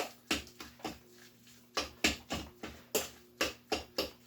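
A utensil knocking against a mixing bowl, about three knocks a second with a couple of short pauses, while the salmon patty mixture is stirred. A faint steady hum runs underneath.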